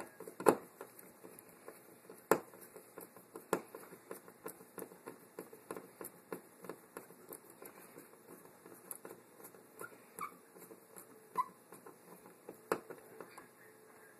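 Hand screwdriver turning a mounting screw to fasten a thermostat wall plate to the wall: a steady run of small scratchy clicks and creaks, with a few sharper clicks, the loudest about half a second in and two seconds in.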